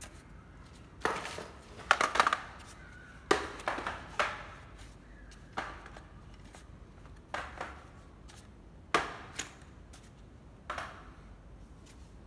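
Hard plastic power-tool gear, battery chargers and cordless drills, being picked up and set down: irregular knocks and clatter, loudest about two seconds in.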